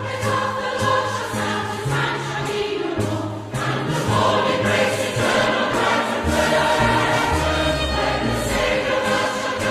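Choral music: a choir singing over held bass notes that change every second or so.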